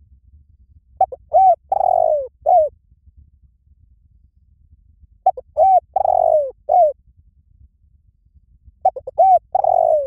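Spotted dove cooing close by: three song phrases about four seconds apart. Each phrase is two short coos, a longer drawn-out coo, then a final short coo.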